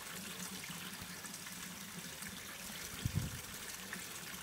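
Water trickling steadily into a garden koi pond, under a faint steady low hum. A short low thump about three seconds in.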